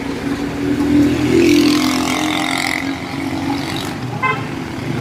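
Road traffic: motor vehicle engines running. One swells louder from about a second in and eases off again after about three seconds, as a vehicle passes close by.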